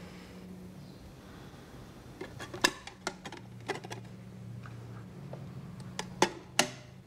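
Irregular sharp clicks and small taps over a low steady hum. They begin about two seconds in, and the loudest come shortly after and twice near the end.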